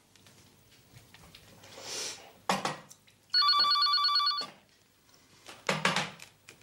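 Telephone ringing once, an electronic trill about a second long, between brief clattering knocks from things handled on the kitchen counter.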